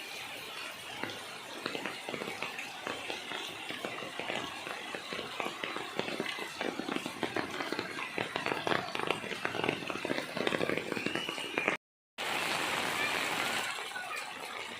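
Children's voices and play noises over a steady hiss of falling rain. The sound drops out completely for a moment about twelve seconds in.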